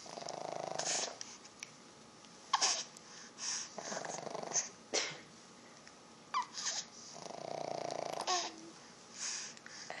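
Snoring in the background: two long rasping snores about seven seconds apart, with short grunts and squeaks from a baby between them.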